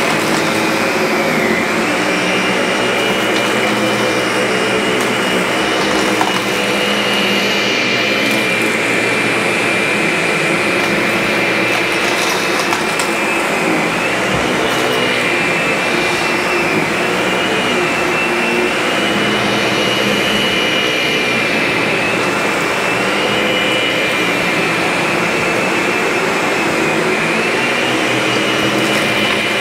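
Vacuum cleaner running steadily, with a high whine whose pitch dips and rises slightly now and then.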